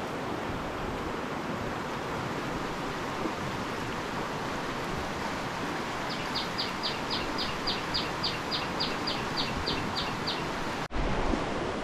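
Steady rush of a swollen, flooded stream. About halfway through, a high short call repeats about fifteen times, roughly four a second, then stops; near the end the sound breaks off abruptly and a louder low rumble follows.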